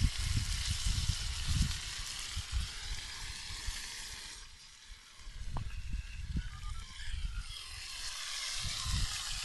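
Food sizzling on the hot cooking surface of a campfire stove, a steady frying hiss that fades for a couple of seconds in the middle and comes back. Irregular low rumbles and thumps sound underneath.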